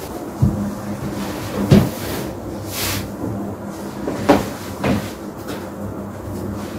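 A bed sheet being shaken out, spread and tugged over a mattress by hand: fabric rustling with a sharp swish about halfway through and several soft thumps as the cloth drops and is pulled.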